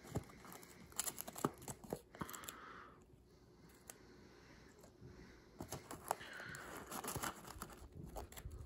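Paper and thin card rustling and crinkling as a folded paper insert tray is lifted out of a handmade papercraft box and a small paper-wrapped piece is taken out. Clusters of sharp card clicks and taps come about a second in and again in the second half, with a quieter stretch between.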